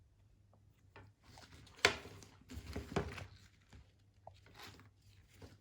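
Handling of a nylon webbing belt harness: a sharp click about two seconds in, then a second of rustling with soft knocks, and a few faint ticks near the end.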